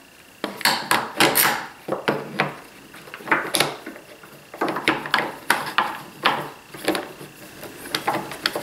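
A Festool MFT clamp being fitted and tightened. Its steel bar and plastic head clatter and click against a perforated metal plate in an irregular run of sharp knocks and clicks.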